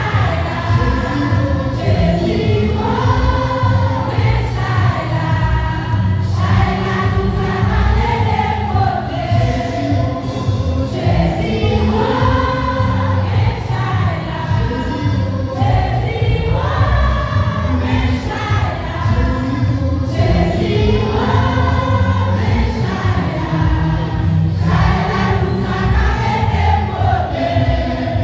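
A choir singing a hymn with instrumental accompaniment and a heavy, steady bass.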